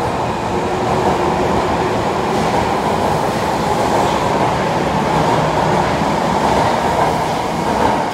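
Osaka Metro Midosuji Line subway train pulling out of an underground station platform, its running noise loud and steady, easing off near the end as the last car clears.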